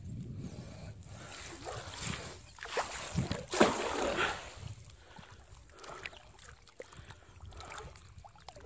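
River water splashing and sloshing right at the microphone as it moves along the surface, in a few irregular splashes, loudest about three and a half seconds in, then settling to a low lapping.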